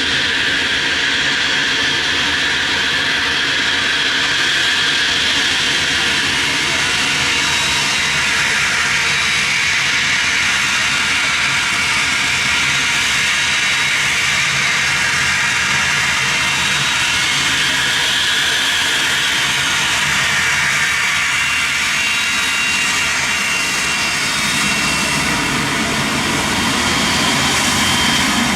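Twin turbofan engines of a Cessna Citation XLS business jet during its takeoff: loud, steady jet noise with high whining tones, and a deeper rumble that builds near the end.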